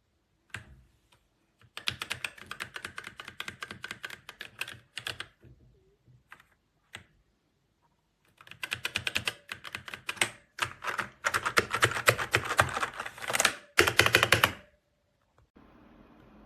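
Typing on the TMKB T68 60% mechanical keyboard: fast runs of key clicks in two long bursts, with a short pause of only a few scattered keystrokes between them.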